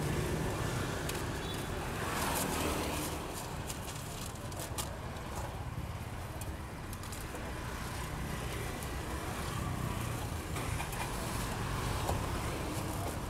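Steady street traffic with passing motorbikes, and a plastic bag crinkling in short bursts as it is handled.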